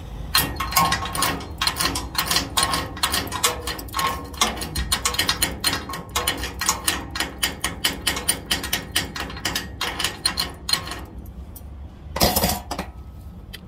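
Welder's chipping hammer tapping rapidly along a fresh overhead 7018 stick weld on galvanized steel, knocking off the slag: quick, irregular metal taps, about four a second, that stop about 11 seconds in. A brief burst of noise follows near the end.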